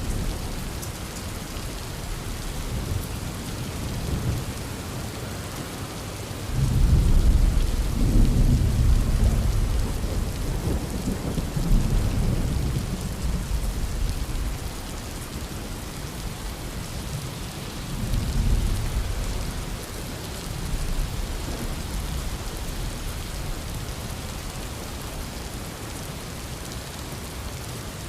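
Heavy rain falling steadily, with a loud roll of thunder breaking in suddenly about six seconds in and rumbling for several seconds, then a shorter, quieter rumble later on.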